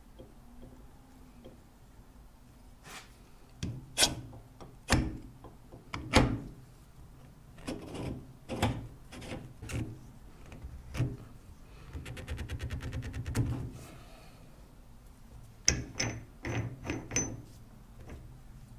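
Metal parts of a Powerbuilt 6-ton bottle jack being handled and fitted together by hand during reassembly: a string of sharp knocks and clicks, a rapid run of ticking lasting about two seconds partway through, and a few more clinks with a brief metallic ring near the end.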